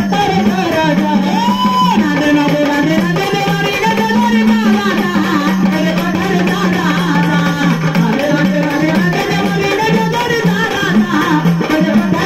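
Marathi gondhal devotional folk music: a steady drum rhythm under a melody line that bends and holds its notes.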